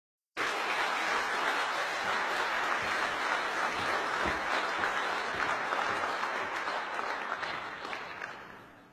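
Large audience applauding steadily, the clapping fading away near the end.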